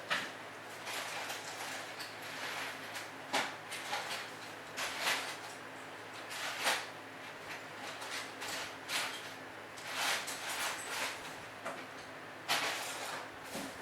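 Irregular clicks, knocks and scrapes of hand tools and metal being handled, one every second or two, with a longer scrape near the end.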